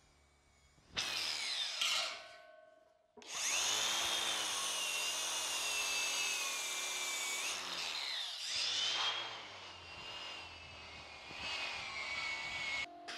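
DeWalt cordless angle grinder working steel: a short run about a second in that winds down, then a long run from about three seconds in, its high motor whine dropping in pitch and recovering as the wheel is pressed against the metal.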